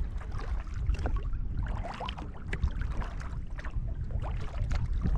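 Sea kayak paddling: water splashing and dripping off the paddle blades and lapping against the hull in short irregular splashes, over a steady low rumble.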